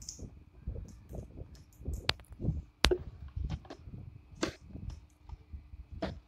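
Plastic clicks, knocks and rubbing from handling a welding helmet's shell while its headgear is fitted inside, with a few sharp clicks spread through.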